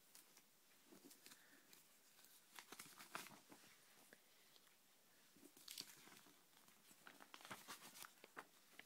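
Faint rustling and crinkling of glossy magazine posters being handled and leafed through, in short bursts about three seconds in, around six seconds, and again between seven and eight and a half seconds.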